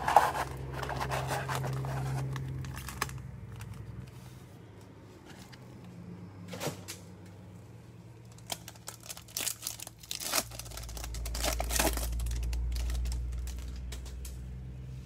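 Cardboard box flap torn open and a stack of Topps Chrome trading cards slid out, with rustling and scraping for the first few seconds. Then a few sharp clicks and taps as the stiff chrome cards are set down and handled, over a steady low hum.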